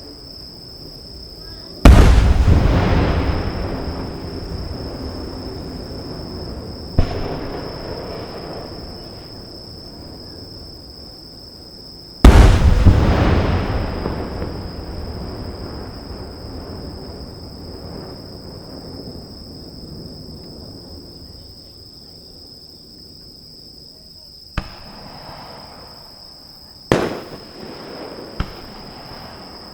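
Aerial fireworks shells bursting: two big booms, about two seconds in and about twelve seconds in, each followed by a long rumbling echo that dies away over several seconds. There is a smaller crack around seven seconds, and a few sharper bangs near the end.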